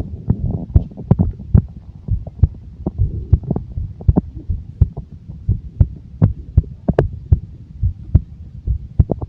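Stomach growling: a low rumble under a quick, irregular run of gurgling pops and clicks.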